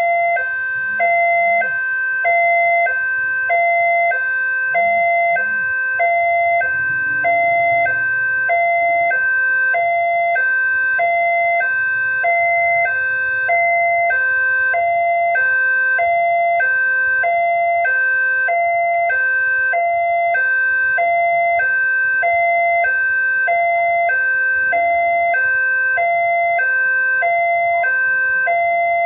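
Railway level-crossing warning alarm sounding its electronic two-tone chime, a higher and a lower tone taking turns evenly about once a second: the signal that a train is approaching the crossing.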